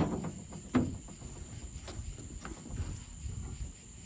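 Metal clunks and knocks from handling a folding trailer-jack-bracket antenna mount: two sharp clanks about a second apart, then fainter knocks and rattling.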